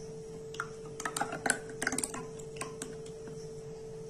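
A quick, uneven run of light clicks and taps from a steel mixing bowl knocking against a plastic ice-cream mould while thick mango-milk mixture is poured into its cups. The taps start about half a second in and stop after about three seconds.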